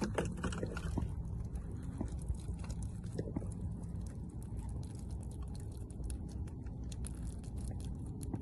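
Plastic water jugs being lifted and handled, giving scattered light crinkles and taps over a steady low rumble.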